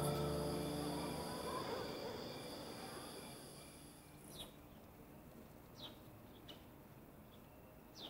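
Crickets chirping steadily. About four seconds in they stop, and a few short, falling bird chirps follow a second or so apart.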